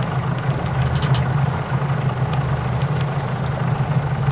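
Sailing yacht's inboard diesel engine idling steadily, a low even hum.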